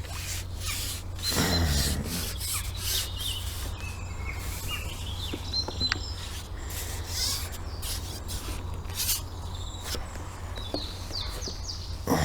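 Small birds chirping now and then over intermittent rustling, rubbing noise and a steady low rumble.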